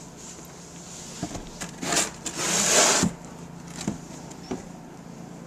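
Snow shovel scraping and scooping snow on wooden deck steps: a few short scrapes, then a longer, louder scrape about two and a half seconds in, with several knocks of the blade against the steps.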